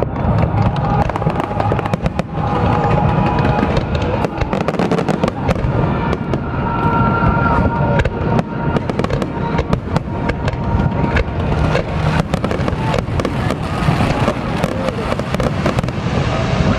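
Fireworks bursting in rapid, continuous volleys of bangs and crackles, with music playing alongside.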